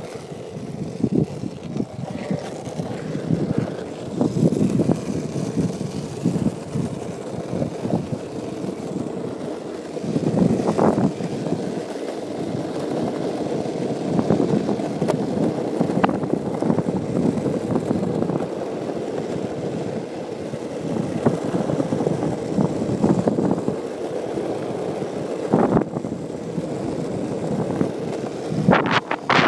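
Longboard rolling down smooth asphalt: a steady rumble from the wheels, with a few sharp clicks along the way.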